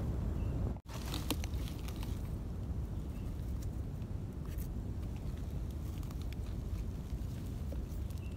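A kitchen knife scraping the dirt off the stem base of a freshly picked wild amanita mushroom, with faint crackles, over a steady low rumble.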